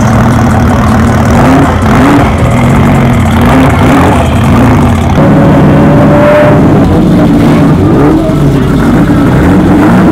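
Car engines idling with several short revs.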